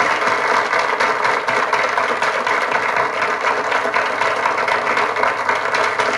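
Studio audience applauding: a steady, dense clapping.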